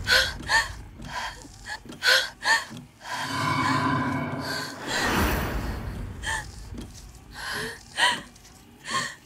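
A woman gasping and whimpering in fear, a string of short, sharp breaths, with a longer, louder stretch about three seconds in.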